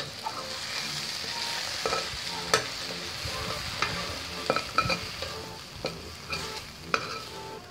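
Steel spatula scraping and clinking against a stainless steel pan as fried potato, brinjal and flat bean pieces are scooped out into a steel bowl, with irregular sharp knocks every half second or so. Underneath runs a steady hiss of the still-sizzling oil.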